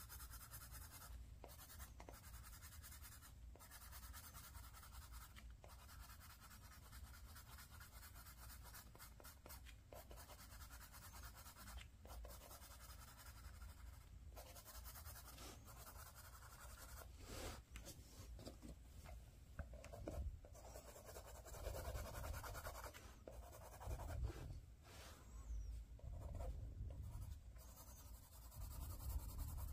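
Pencil scratching on sketchbook paper in repeated short shading strokes, faint. In the second half there are a few louder, dull low bumps.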